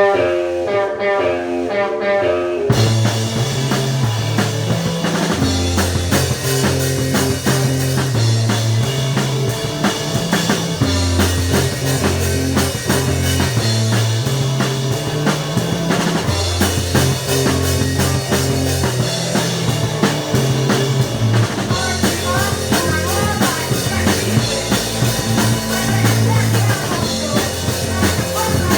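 Rock band playing a song live: an electric guitar opens alone for about two and a half seconds, then drums and bass guitar come in and the full band plays on with a repeating bass line.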